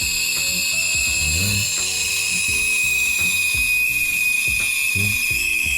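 Two espresso-machine steam wands frothing milk at the same time, one on a Breville Barista Express: a steady, loud hiss of steam into milk over the rattle and buzz of the machines. It is "a lot of noise."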